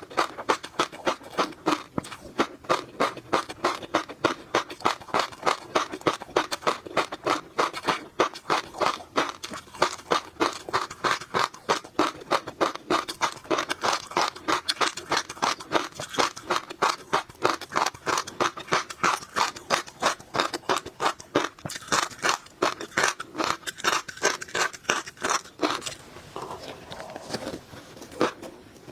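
Close-miked chewing of tobiko (flying fish roe), the eggs crunching and popping in a steady, quick rhythm of about three sharp clicks a second, with a brief pause near the end.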